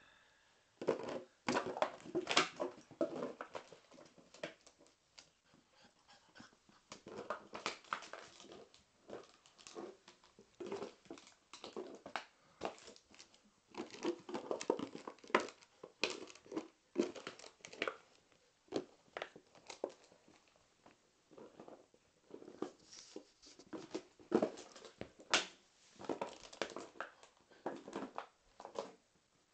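Irish Water Spaniel puppy playing with toys and a plastic bottle: irregular bouts of scuffling, chewing and crinkling noises, broken by short pauses.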